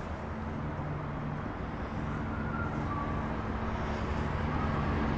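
A motor or engine running with a steady low hum, a few held tones over a noisy wash, slowly growing louder.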